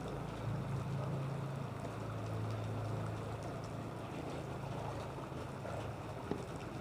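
A low engine drone over a steady rushing noise, the drone fading after about four seconds.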